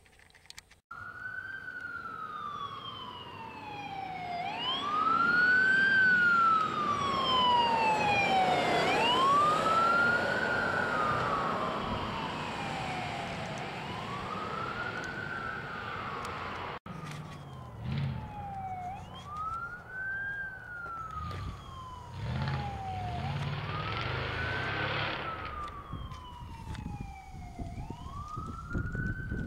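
Emergency vehicle siren on a wail, rising quickly and sliding slowly down about every four seconds, loudest in the first third. After a short break about halfway through, the wail goes on over a low rumble.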